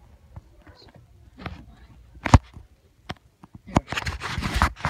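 Handling noise from a phone camera being moved about: a few sharp knocks, the loudest about halfway through, then a burst of rustling near the end.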